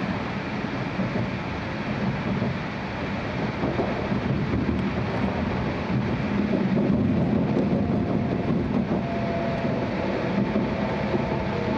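Cabin running noise of an E6-series Shinkansen car: a steady low rumble, with faint whining tones coming in during the second half.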